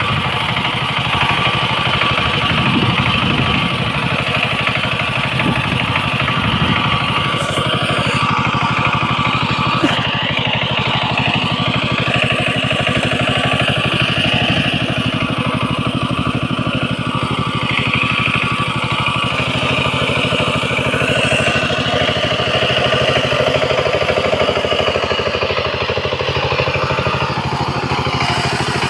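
Small engine running steadily at an even speed, with a fast regular firing beat.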